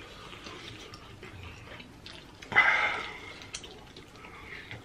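Close-up mouth sounds of eating saucy chicken wings: chewing and lip smacking with soft wet clicks, and one louder, longer wet mouth noise about halfway through.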